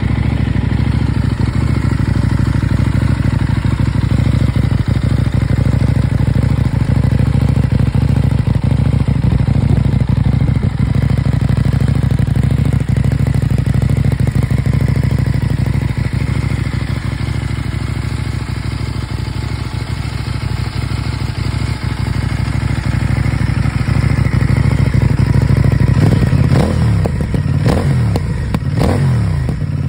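CFMOTO 800NK's 799 cc parallel-twin engine idling steadily, heard close to its Euro 5 twin-outlet exhaust silencer. Near the end the throttle is blipped several times, the revs rising and falling quickly.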